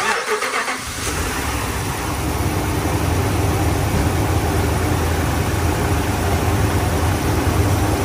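Chrysler Gen 3 5.7-litre Hemi V8 starting: a brief crank that catches within about a second, then running steadily at idle. The engine has a hard misfire logged on cylinder 3 (code P0303).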